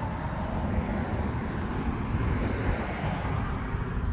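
Steady outdoor background noise with a low rumble and no clear motor whine.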